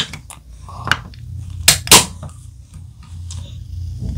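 Sharp clicks of fingers working at the ring-pull of an aluminium soda can, the loudest two close together about two seconds in, over a low steady hum.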